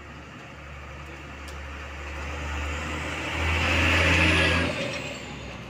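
Hino 500 ten-wheel diesel truck approaching and passing close by, its engine growing louder to a peak about four seconds in, then fading as a high tyre hiss slides down in pitch.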